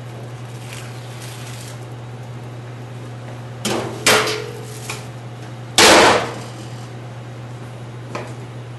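A plastic dessert cup from a microwave meal being handled and unwrapped on a counter: two sharp knocks about three and a half to four seconds in, then a loud brief clatter of plastic about six seconds in, and a faint click near the end, over a steady low hum.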